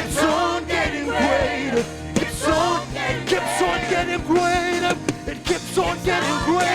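Live gospel praise-and-worship music: voices singing over a band with a steady drum beat and sustained bass and keyboard notes.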